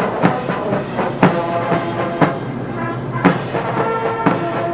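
Military brass band playing a march: held brass chords over a steady drum beat, with a strong stroke about once a second.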